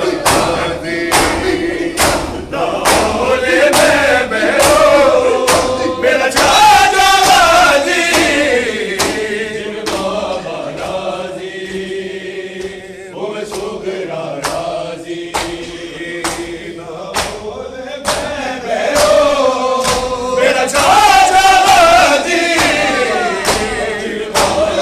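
Crowd of men chanting a mourning lament together, to a steady beat of hands slapping bare chests in matam, a little under two slaps a second.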